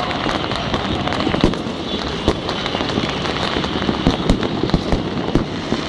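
Many fireworks and firecrackers going off at once: a continuous crackle with frequent sharp bangs, the loudest about 1.5, 2.3, 4.3 and 5.4 seconds in.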